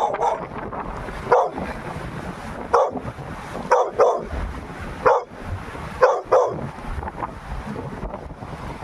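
A dog barking in short single barks about a second apart, which stop after about six and a half seconds. Wind buffets the microphone throughout.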